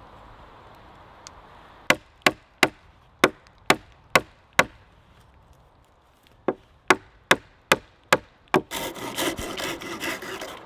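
Wooden dowel hammered into a drilled hole in a log with an axe head: two runs of sharp wooden knocks, seven and then six, about two to three a second. Near the end, a hand saw cuts through the top of the dowel in quick strokes.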